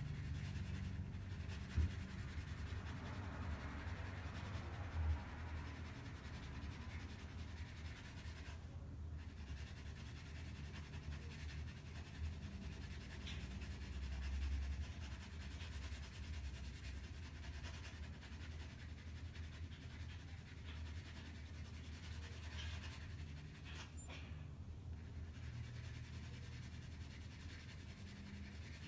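Graphite pencil hatching on drawing paper: faint, steady scratching strokes, with a low steady hum underneath.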